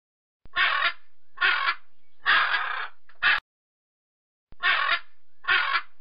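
Macaw squawking: four loud, rasping squawks in a quick series, then after a pause of about a second the series starts again with two more squawks.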